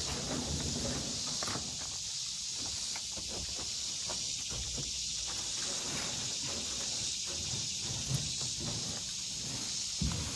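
Dry dead leaves and forest litter rustling and crackling as they are scooped up by hand from an old pickup bed, with a sharper knock about eight seconds in and another near the end. A steady high-pitched insect drone runs underneath.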